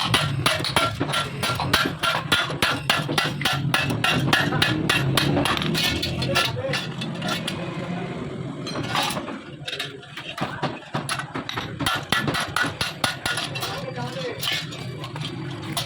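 Hammer striking sheet metal in quick repeated blows, about three to four a second, with a short pause about eight seconds in before it resumes. A steady low hum runs underneath.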